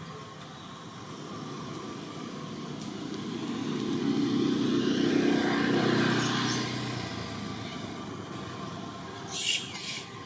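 A passing motor vehicle's engine hum swells, is loudest about halfway through, and fades away. Near the end there are a few short, high-pitched squeaks.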